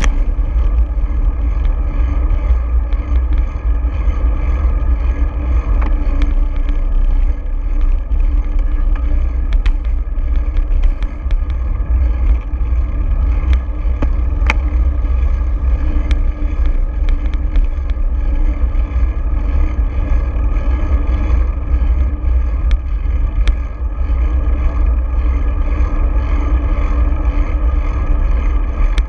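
Wind buffeting the microphone of a bicycle-mounted action camera while riding, a heavy, fluctuating low rumble over road noise, with a few faint clicks.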